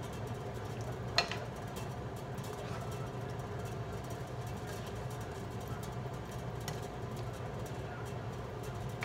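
Steady low mechanical hum, with quiet stirring of a simmering stew in a nonstick skillet and one sharp knock of the spatula against the pan about a second in.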